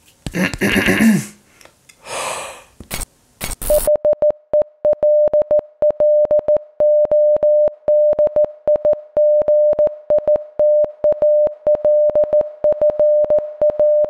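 A few short noisy glitch effects, then from about four seconds in a Morse code tone: one steady mid-pitched beep keyed on and off in quick dots and dashes with a click at each edge, spelling out the greeting "Hello digital friends".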